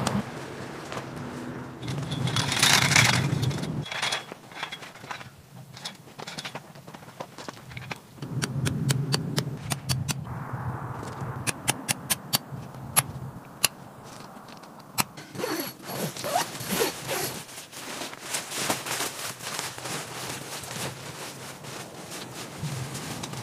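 A tent peg being hammered into stony ground: a run of sharp knocks near the middle. Around it, tent fabric rustling and scraping, and crunching on gravel.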